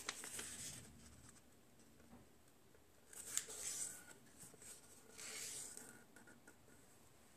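Sheet of origami paper being folded and creased by hand: soft papery rustles and fingers rubbing along the fold, in three short bouts near the start, about three seconds in and about five seconds in.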